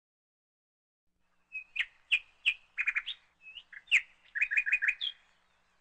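A bird chirping: a string of short, sharp chirps starting about a second and a half in, with two quick runs of three to five notes, the last around the five-second mark.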